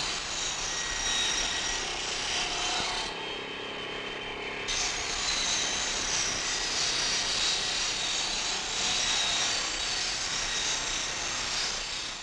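Sawmill saw cutting timber into railway sleepers: a steady rasping noise. Its higher part thins out about three seconds in and comes back a second or two later.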